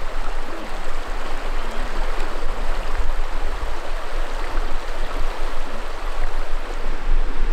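Mountain river flowing over rocks: a steady rushing of water.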